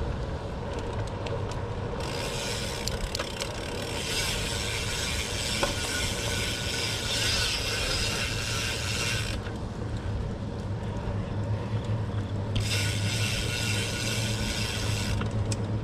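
Bicycle rear hub freewheel buzzing with fast ratchet clicks while the rider coasts, twice: from about two seconds in to about nine, and again for a couple of seconds near the end. Under it runs a steady low rumble of tyres and wind.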